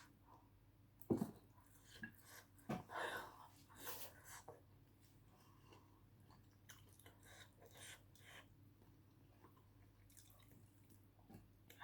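Close-up eating sounds of rice noodles and roast pork: chewing and short wet mouth clicks and smacks, one sharp click about a second in and a cluster a couple of seconds later, over a faint background.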